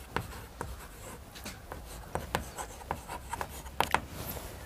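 Chalk writing on a chalkboard: a run of short, irregular taps and scratches as letters are written.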